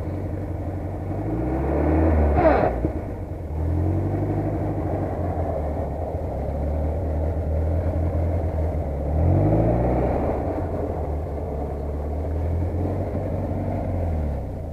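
UAZ off-road vehicle's engine running as it creeps along a snowy track, its pitch rising twice as it picks up revs. About two and a half seconds in there is a brief, sharper loud noise.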